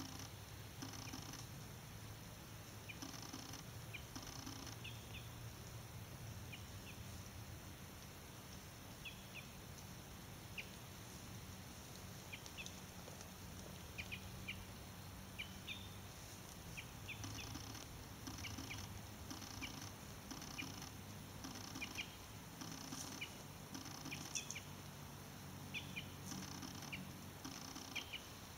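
Faint woodland ambience: short, high bird chirps scattered throughout over a low, steady rumble. A soft pulsing sound repeats about once a second at the start and again through the last ten seconds.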